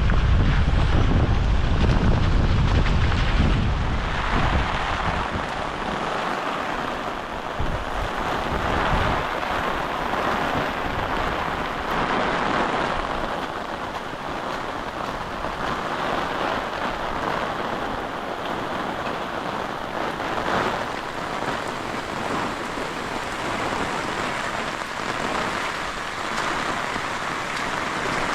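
Hurricane rain and wind, a steady heavy hiss. Gusts buffet the microphone with a deep rumble for the first few seconds.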